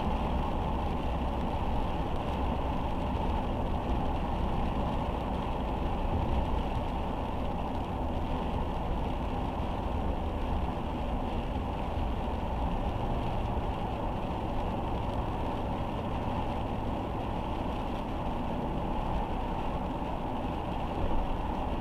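Steady noise of a car driving in rain: tyres on the wet road and the engine running, even throughout with no sudden events.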